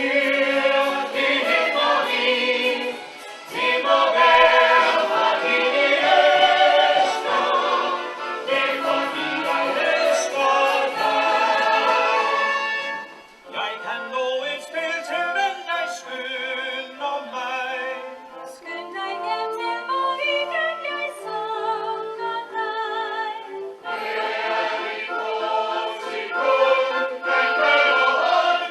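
Ensemble and choir singing a musical-theatre song, voices with vibrato. The singing drops back briefly about halfway, continues thinner and quieter, then swells fuller again near the end.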